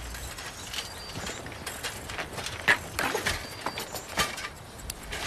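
Bicycles being wheeled and laid down on the ground: irregular clicks, knocks and rattles of bike frames and parts, with footsteps. The loudest knocks come a little before the middle and at the very end.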